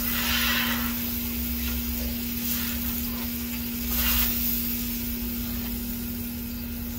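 Wide metal scraper dragged across the hot steel top of a Blackstone griddle: one scraping stroke at the start and another about four seconds in, over a steady low hum.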